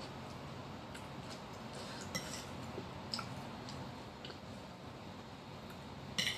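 Metal spoon clinking and scraping against a ceramic bowl as it scoops raw vegetables, with quiet chewing of the crisp greens and onion between; a sharper clink comes near the end.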